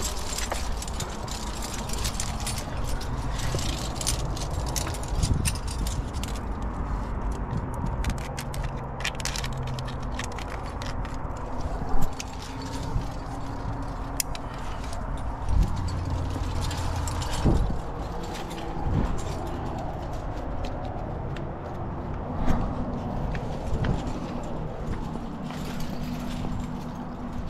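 Climbing gear clinking and jangling on a harness (carabiners and quickdraws) as a climber moves up a granite crack, with hands scraping the rock and several louder knocks, the biggest about twelve seconds in. A steady low rumble runs underneath.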